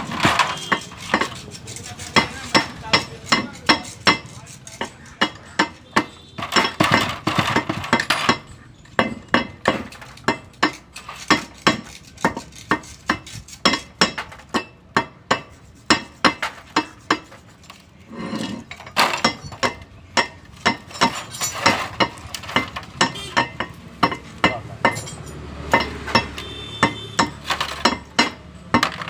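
Metal tools and gearbox parts clinking and tapping against each other over and over, often about three sharp knocks a second. The knocks are louder near the start and again from about two-thirds of the way in, and softer in between.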